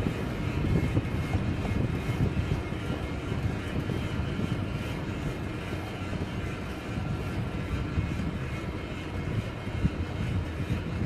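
Wind buffeting the microphone of a camera on a moving bicycle, a steady low rumble, with the tyres rolling on asphalt.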